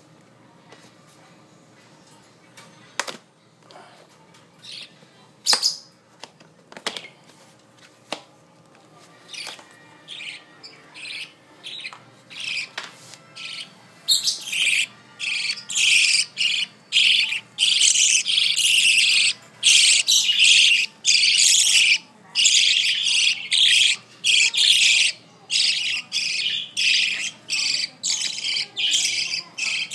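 Budgerigars chirping and calling: a few scattered calls at first, then from about halfway a near-continuous, loud chatter of rapid high calls.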